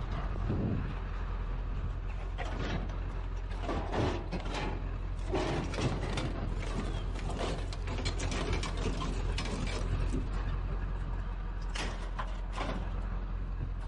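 Scrap metal and junk being shifted and dragged around by hand: irregular clanks, knocks and scrapes over a steady low hum.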